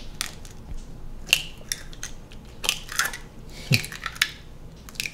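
Eggs being cracked on a ceramic bowl and their shells pulled apart, one after another: a series of sharp cracks and shell crunches.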